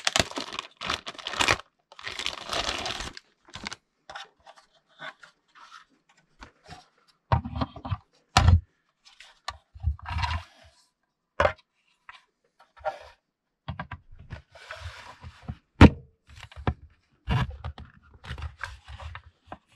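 Hard plastic toy tank parts being handled and pressed together: scattered clicks, knocks and snaps, with a rustle of plastic packaging in the first few seconds.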